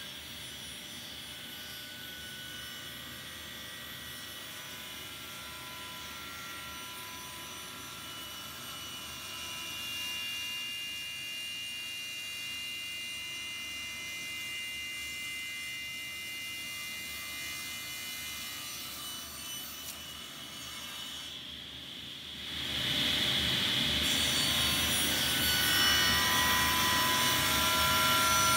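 Table saw running as a walnut end-grain cutting board is pushed through the blade, a steady machine noise with a faint whine. It gets much louder about 22 seconds in.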